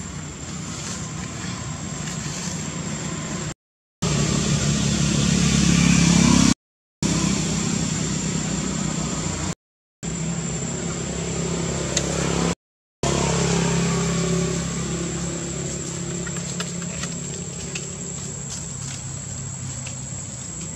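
Motor vehicle engine running, a low hum with a thin steady high-pitched whine above it; it swells to its loudest about six seconds in. The sound drops out completely for a fraction of a second four times.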